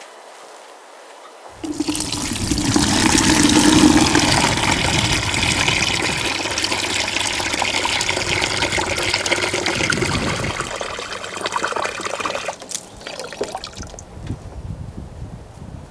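Water running loudly and steadily, starting suddenly about a second and a half in and stopping near the end, followed by a few light knocks.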